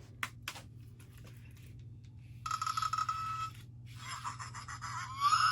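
Fingerlings Grimling Evil Gigi toy reacting in the dark: two clicks, then about a second of buzzing with a steady whine, then a high, wavering voice-like sound near the end. A steady low hum runs underneath.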